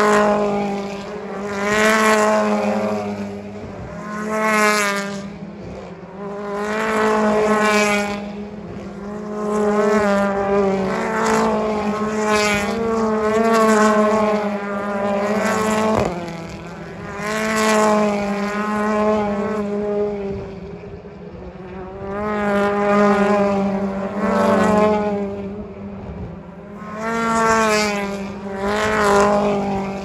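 British Touring Car Championship race cars, turbocharged, passing one after another at about two-second intervals. Each engine note climbs in pitch as the car accelerates away, and each swells and fades over a steady low hum. A single sharp crack comes about halfway through.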